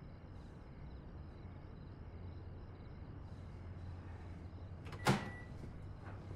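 A single sharp knock about five seconds in, with a brief ring after it, over a low steady room hum; faint fast high ticking runs through the first three seconds.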